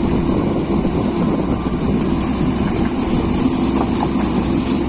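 Diesel engine of a heavy earthmoving machine, a backhoe loader or dozer, running steadily with a loud, constant drone.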